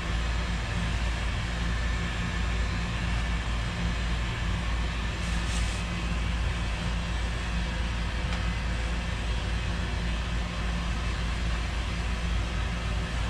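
Heat gun running steadily, heating a stuck old rubber handlebar grip to loosen it.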